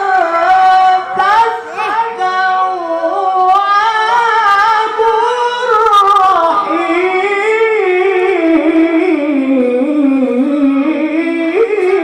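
A male Quran reciter's high voice holding one long ornamented melismatic note in tilawah style, the pitch wavering in rapid turns and then sliding steadily down over the second half.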